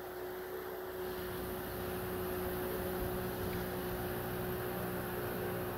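A steady motor hum from the boat, one constant tone with a deeper drone joining about a second in and holding level.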